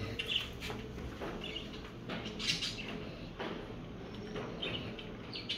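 Labrador retriever eating scrambled egg from a hand, with wet mouth smacks, licks and chewing clicks at irregular intervals.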